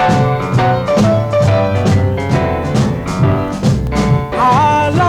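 Background music: an upbeat song with a steady beat, and a singing voice coming in near the end.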